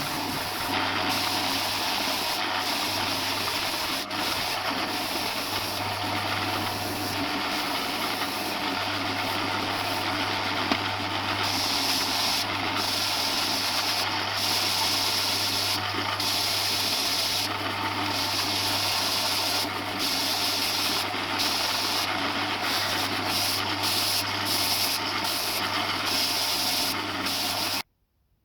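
Electric power sander running against wood: a steady low motor hum under a hissing grind that swells and eases over and over. It cuts off suddenly near the end.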